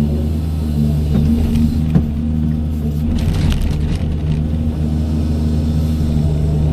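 Doosan 210W wheeled excavator's diesel engine running steadily under working load, with a sharp knock about two seconds in and a burst of rattling, scraping noise from about three to four and a half seconds in as the machine works.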